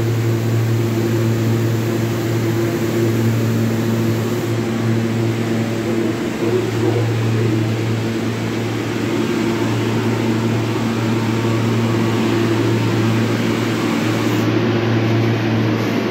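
R160B subway train standing at the platform with its doors open, its onboard equipment giving a steady low hum.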